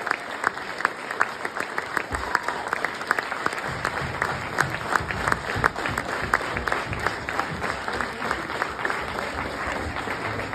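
Audience applauding a rock band, with a few loud nearby hand claps standing out from the crowd's clapping. A low rumble of music or stage sound comes in underneath about four seconds in.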